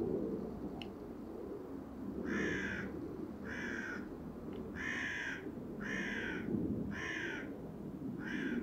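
A bird calling six times in a row, about one call a second, each call short, over a steady low rumble.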